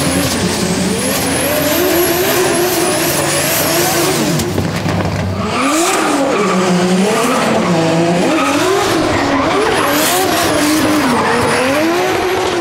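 Nissan 180SX drift car sliding sideways: its engine note rises and falls over and over as the throttle is worked, with a high, wavering tyre squeal over it.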